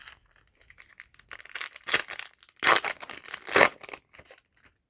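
Foil trading-card booster pack wrapper crinkling and being torn open, a run of crackly rustles with three louder rips in the middle.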